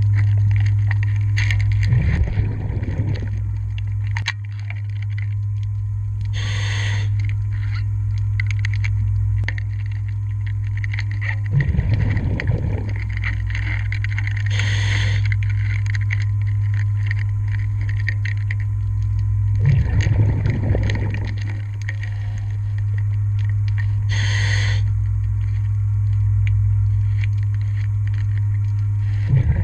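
Scuba diver breathing through a regulator: a short hiss on each inhale and a bubbling rush on each exhale, about four breaths, over a steady low hum. Light clicks and scrapes of metal tools on the propeller shaft sound between breaths.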